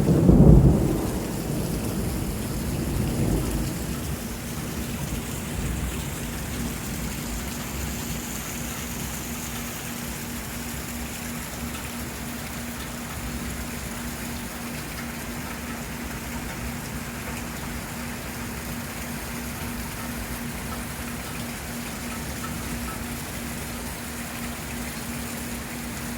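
Thunder rumbling loudly at the start and dying away over the first few seconds, then heavy rain falling steadily.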